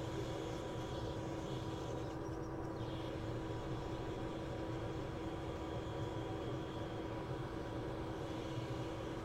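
Hot air rework station blowing steadily while it heats the glue left around the A11 CPU, an even rushing hiss with a constant low hum under it.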